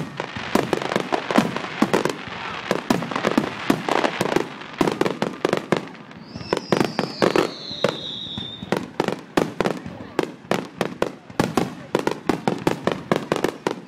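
Aerial fireworks bursting in a rapid, dense barrage of bangs and crackles, several per second. About six seconds in, a long whistle slides down in pitch over two seconds.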